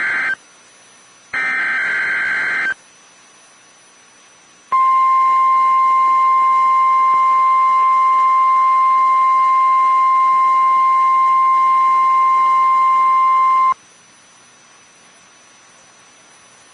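NOAA Weather Radio test signals over the air. First the end of one burst and then one more full burst of a SAME digital header, each a buzzy warble of rapidly switching tones about a second and a half long. After a short pause comes the National Weather Service 1050 Hz warning alarm tone, one steady high beep held for about nine seconds, followed by faint radio hiss.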